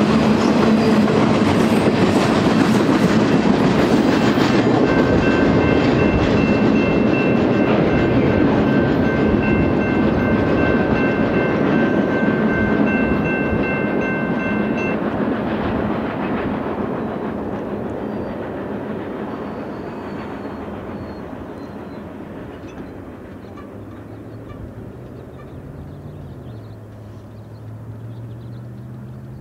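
Double-stack intermodal freight train's well cars rolling past, a loud rumble and rattle of wheels on the rails that fades steadily as the end of the train moves away. A steady high ringing tone sounds for about ten seconds in the middle.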